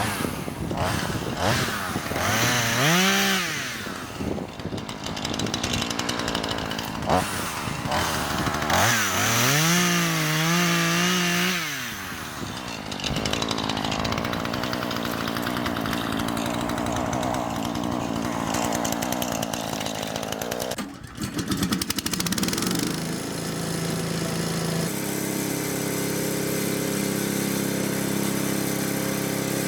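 Two-stroke chainsaw revved hard, its pitch climbing sharply twice as the throttle opens. After about twenty seconds it gives way to a different engine running steadily at an even speed.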